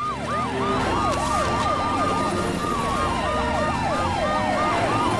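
Several emergency-vehicle sirens wailing together, their pitches rising and falling quickly and overlapping, over a low rumble.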